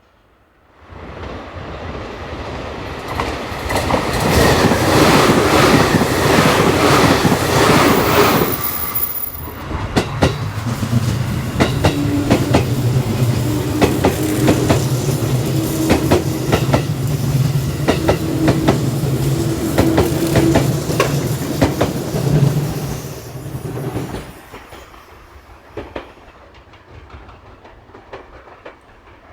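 An electric train runs by on the track, with a loud rush of noise at first. It then settles into a steady hum with a regular clickety-clack of wheels over the rail joints, and drops away after about 24 seconds.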